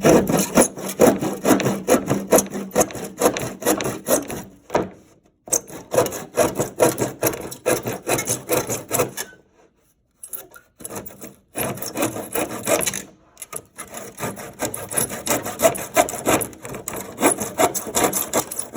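Hand saw cutting through wood in quick back-and-forth strokes, each stroke a rasping scrape, in runs broken by a few short pauses.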